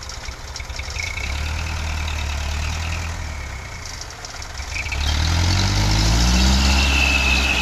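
Hino Dutro dump truck's diesel engine idling, then revving up about five seconds in and held at high revs, with a thin high whine joining near the end.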